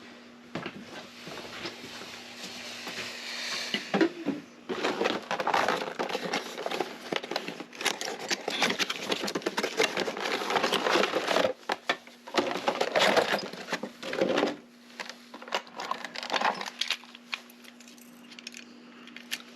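Small metal lock parts and tools clicking and rattling on a workbench as a lock cylinder is worked on during rekeying, in dense irregular bursts from about four seconds in to nearly fifteen, then sparser clicks. A faint low steady hum runs underneath.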